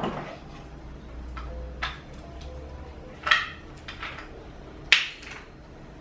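Coffee things handled at the counter: a few separate clinks and knocks of cups or capsule against hard surfaces, the sharpest near the end. A faint low hum runs under the first half.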